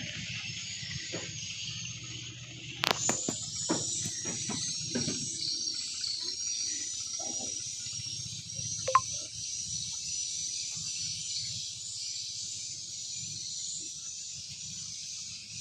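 Insects, crickets or cicadas, trilling steadily in a high, repeating chirp, over a low steady hum. A few short knocks come in the first few seconds and once more about halfway through.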